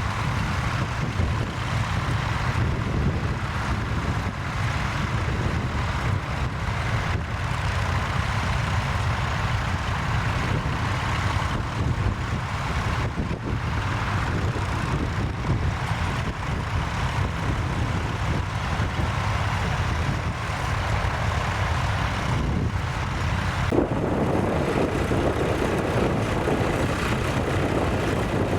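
Tractor engine running steadily. About 24 s in, a louder mid-pitched noise joins it.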